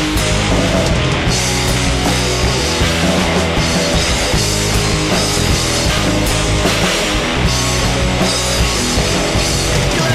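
Punk rock band playing an instrumental passage without vocals: distorted electric guitar, bass guitar and drums, loud and driving.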